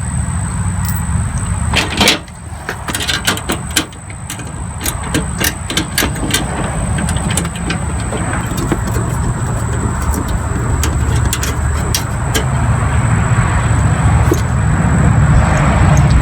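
Socket wrench and wrench working a fender-flare retainer nut: many short, irregular metallic clicks and clinks over a steady low rumble.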